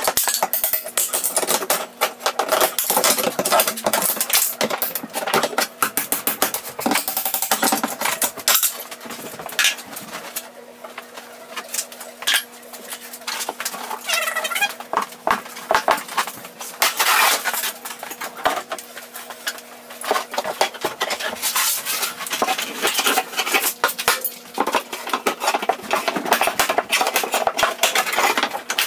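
Hammer and pry bar prying wall paneling and trim strips off a wall: a rapid, busy run of sharp metallic clinks, taps and knocks, with a steady hum underneath.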